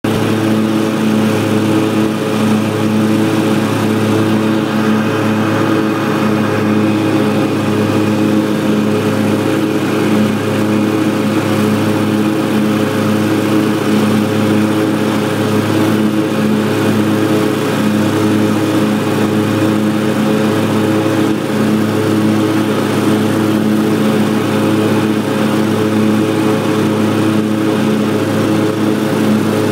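Lawn mower engine running steadily at one constant speed, an even hum with no change in pitch.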